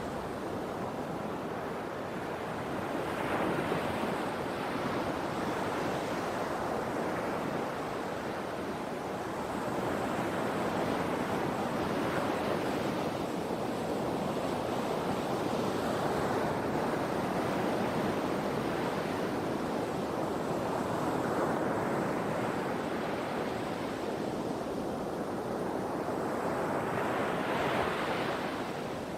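Sea waves breaking and washing ashore: a continuous surf rush that swells every few seconds, loudest near the end.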